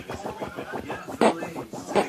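A dog rooting about with its head buried: a rapid run of scratching, rustling noises, with one louder burst a little after a second in.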